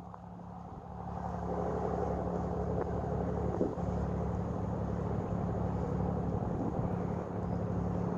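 An engine running steadily with a low, even drone, growing a little louder about a second in.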